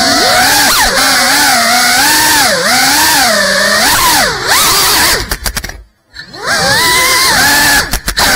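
Brushless motors and propellers of a GEPRC Cinelog 35 FPV cinewhoop drone whining, the pitch swooping up and down with the throttle. A few quick clicks come just before the motors cut out about six seconds in, and then they spool straight back up.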